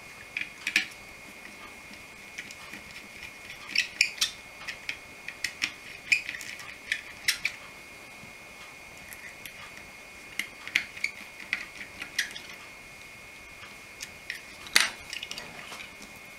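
Irregular small clicks and taps of a small screwdriver and tiny screws working on a model train's circuit board as it is unscrewed. The loudest click comes near the end.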